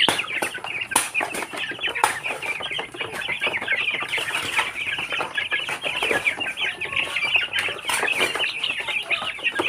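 A flock of young Barred Plymouth Rock chickens cheeping continuously in a dense high chatter while feeding, with a few sharp taps among the calls.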